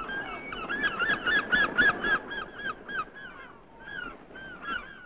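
Birds calling: a rapid run of short honking calls, each rising and falling in pitch, that slows after about two seconds and fades out near the end.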